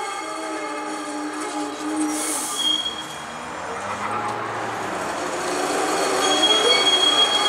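Canadian Light Rail Vehicle (CLRV) streetcar rounding a tight loop curve, its steel wheels squealing against the rails in several shifting tones. A short hiss comes about two seconds in.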